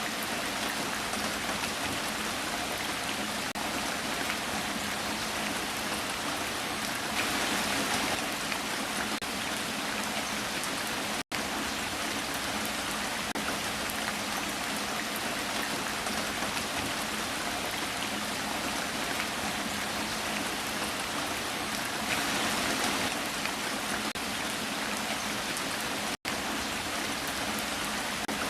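Steady heavy rain, an even hiss of drops with brief swells in intensity. The recording loops about every fifteen seconds, with a split-second gap at each join, twice here.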